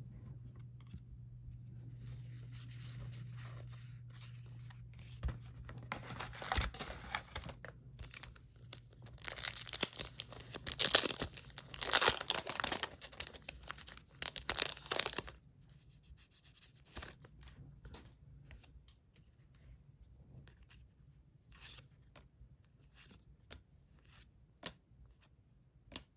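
Yu-Gi-Oh booster packs being torn open by hand, the foil wrappers crinkling, the loudest tearing about ten to fifteen seconds in. After that, only scattered light ticks.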